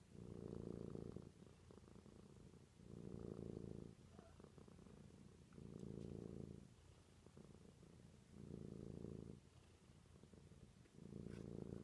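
Domestic cat softly purring as she drifts off to sleep. The purr swells louder for about a second on one phase of each breath, roughly every two and a half to three seconds, and drops quieter in between.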